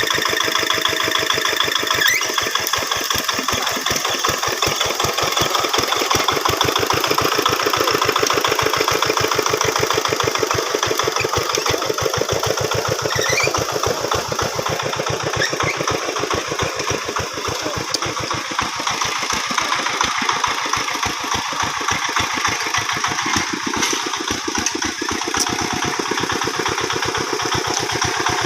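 Engine of a two-wheel rice-field hand tractor running steadily with an even, rapid chugging.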